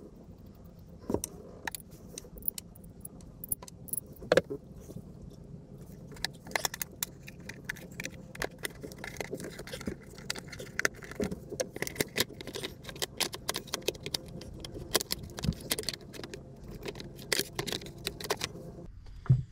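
Irregular metallic clinks, knocks and rattles as bolts, a pulley and hand tools are handled while the front of a Perkins Prima M50 marine diesel is stripped and its plastic timing-belt cover is worked off. A faint steady low hum sits underneath.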